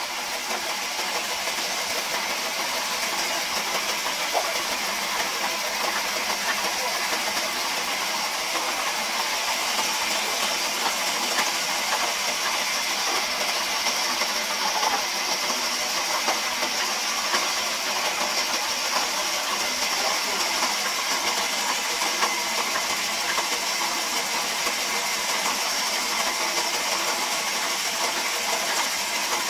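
Large vertical band saw running and ripping a thick squared timber beam: a steady hissing cutting noise with a high whine over it, unbroken throughout.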